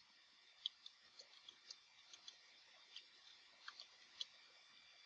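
Faint keyboard keystrokes: irregular clicks, a few a second, as a terminal command is typed.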